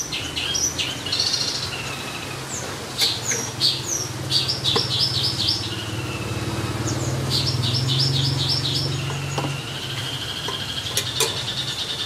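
Caged songbirds chirping in quick repeated phrases over a low engine drone that swells and fades as a vehicle passes, with a few light knocks as a hanging pot and bucket are handled.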